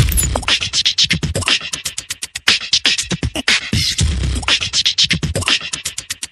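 Background music with a rapid, clipped percussive beat in the style of beatboxing.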